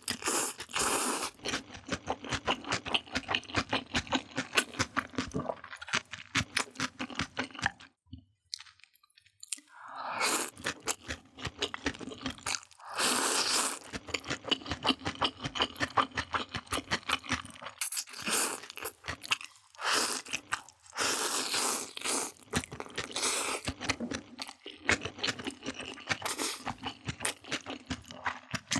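Close-miked mukbang eating sounds: crunchy bites and wet chewing in rapid crackling runs, with a pause of about two seconds about a third of the way in.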